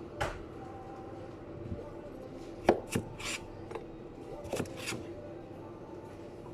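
Sushi preparation at a work counter: a few scattered sharp knocks and scrapes of a knife and utensils on a cutting board, the loudest about two and a half seconds in, over a steady hum.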